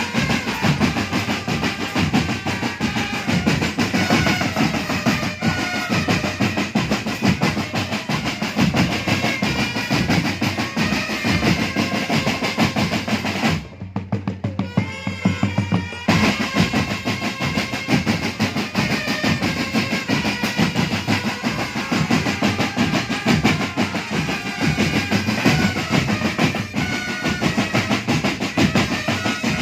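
Indonesian marching drum band playing a song: snare and bass drums keep a steady beat under a melody line. The sound thins out and drops briefly about halfway through, then comes back at full strength.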